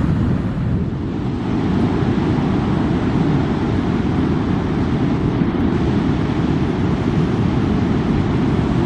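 Ocean surf breaking on a sandy beach, a steady deep rush, with wind buffeting the microphone.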